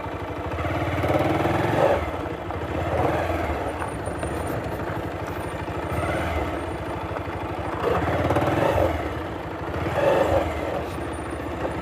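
Motorcycle engine running at low revs as the bike creeps along a rough dirt track, swelling and easing in loudness several times.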